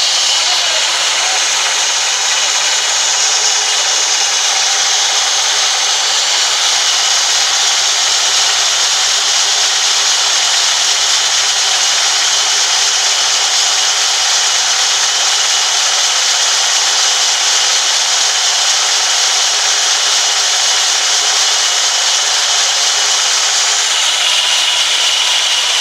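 Vertical band sawmill blade cutting lengthwise through a large log: a loud, steady sawing noise without a break, its tone changing slightly near the end.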